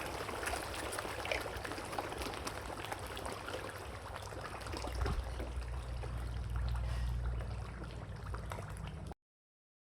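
Water trickling and splashing, with many small crackling clicks and a low rumble that swells about halfway through; the sound cuts off suddenly near the end.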